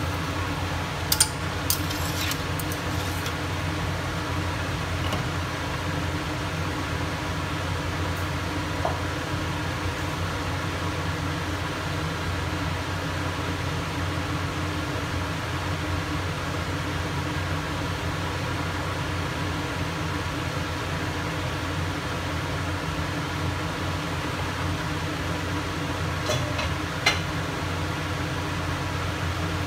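Steady electric hum of a kitchen fan running, with a low drone that holds unchanged throughout. A few light clicks come about a second in and again near the end.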